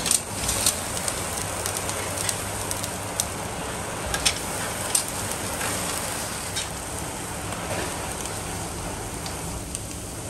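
Thick bone-in beef rib chop sizzling and flaring over glowing embers on a grill, with sharp crackles and pops every second or so.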